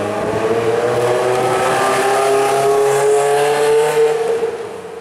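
Ferrari F355's V8 accelerating hard, revs climbing steadily in one gear, then dropping away near the end as the car pulls off.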